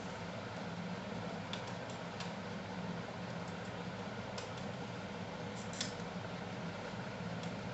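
A few small clicks and ticks from the plastic shell of a computer mouse being taken apart, the loudest near six seconds in, over a steady background hum.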